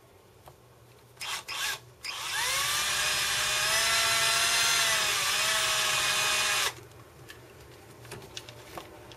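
Cordless drill with a small twist bit drilling into a phonograph cartridge clamped in a bench vise. Two short blips come about a second in, then a run of about four and a half seconds: the motor whine rises as it spins up, holds steady, dips briefly, and cuts off suddenly.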